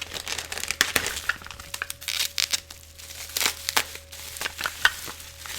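Coin packaging being handled and unwrapped: crinkling wrap with a run of sharp clicks and small taps.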